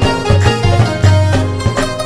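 Traditional folk music with a steady drum beat, about three strokes a second, under a melodic instrument line.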